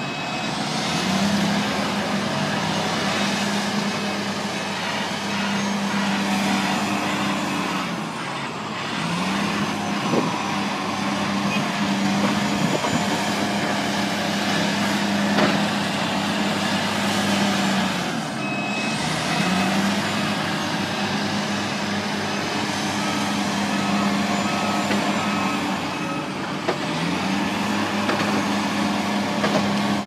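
Heavy diesel earthmoving machinery, a Caterpillar excavator working with a dump truck, running loud and continuously. The engine note drops and climbs back several times, about every eight to ten seconds, as the machine works under changing load.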